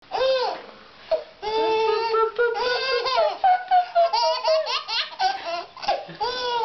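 Baby laughing, high-pitched, in repeated bouts with short breaks between them.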